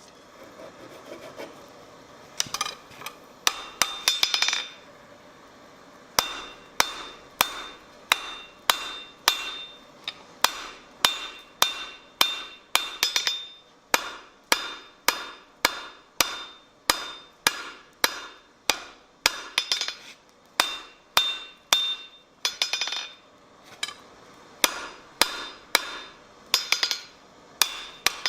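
Blacksmith's hammer striking iron on an anvil, with a bright ring on each blow. A few scattered blows come first, then a steady rhythm of about two blows a second.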